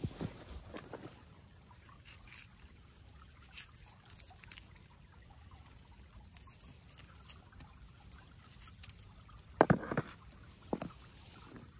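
A few sharp knocks and clacks, a cluster of them loudest near the end, over a faint steady trickle of creek water.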